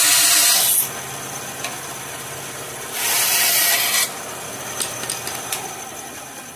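Bandsaw running steadily as its blade cuts through a 3/8-inch wooden dowel rod: a loud cut that ends under a second in, and a second cut of about a second near the middle. A few light clicks follow.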